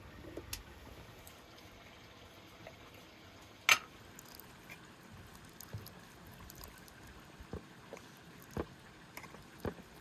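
Metal spoon clicking and scraping against a glass jar while scooping sticky jam onto a wooden plate, with soft wet plops of the jam; a few light taps come in the second half. One sharp click a little before the middle is the loudest sound.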